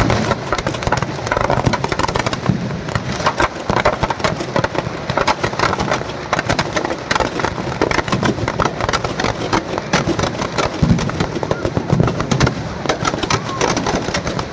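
Firecrackers crackling and popping in quick, irregular succession, a dense unbroken run of small bangs.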